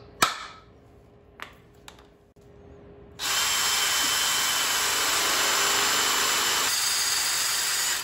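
A hammer strikes a centre punch once on an engine block's mounting boss, followed by a couple of light clicks. About three seconds in, a cordless drill starts, running steadily for about five seconds as it bores a pilot hole into the boss with a Type R cobalt bit.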